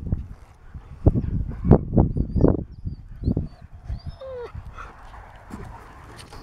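Dogs playing at close range: a run of low scuffling thumps, then a short, falling whine about four seconds in.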